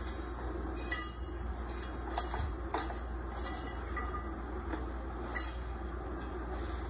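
Steady low hum of factory machinery and ventilation, with irregular light clinks and clacks from items and plastic crates being handled at a workbench.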